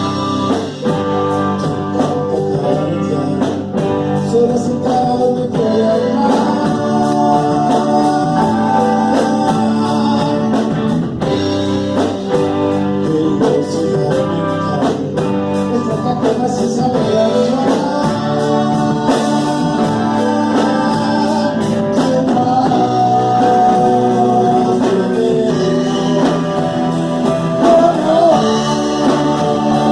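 A live band playing a song: a voice singing over guitar, with a steady beat.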